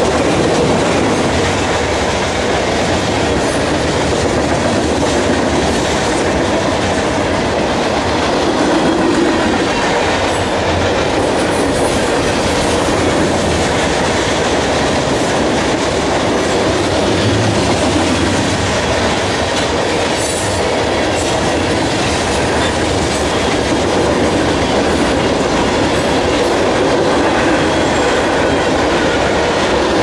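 A freight train's cars rolling past at close range: a loud, steady rumble and clatter of steel wheels on the rails, with no horn sounding.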